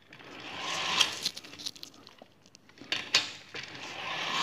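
Lab trolley rolling along its track, the rolling noise growing louder for about a second as the falling mass accelerates it, ending sharply with a knock. A few clicks and knocks follow, then another rolling swell near the end as the trolley is run back along the track.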